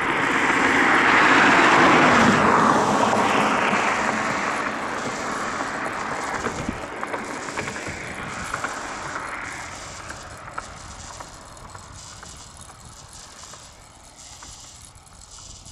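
A motor vehicle passing on the road, loudest about two seconds in and fading away over the following ten seconds. Near the end a faint, evenly repeating rasp is heard.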